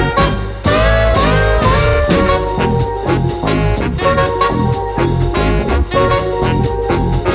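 Upbeat swing-style background music with brass, a walking bass line and a steady drum beat.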